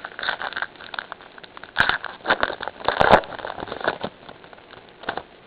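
Crinkling and crackling of a foil trading-card pack being torn open and the cards handled. The crackles come in irregular clusters and are loudest about two and three seconds in.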